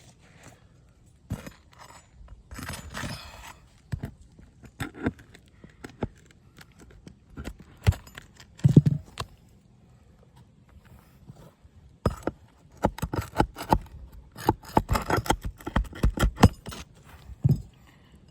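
A metal pry bar working under an asphalt roof shingle to remove the nails: scraping of the bar against the shingle with scattered sharp metal clicks and taps, growing into a quick run of clicks in the second half.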